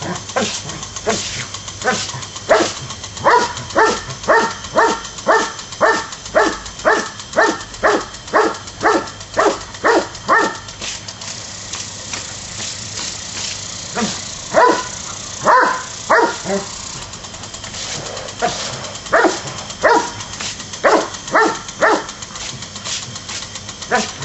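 A Doberman barking at a lawn sprinkler's spray: a fast, even run of short barks, about two a second, then after a pause two shorter bursts of barks.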